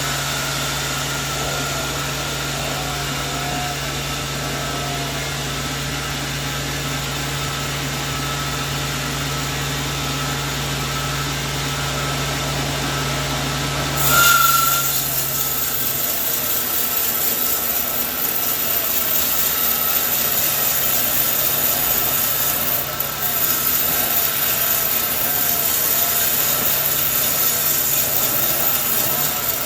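Sawmill saw running and cutting coconut wood. A steady low hum gives way about halfway through, after a brief loud burst, to a brighter, hissier sawing noise.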